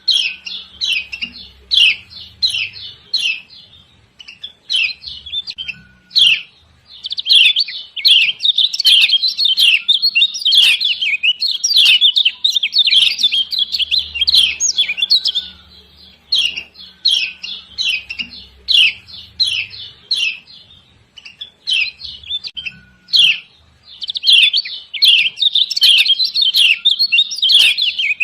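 Female kecial kuning, the yellow Lombok white-eye, giving a rapid run of sharp, high 'ciak ciak' chirps in dense bursts with short pauses. This is the female call used as a lure to set caged males singing.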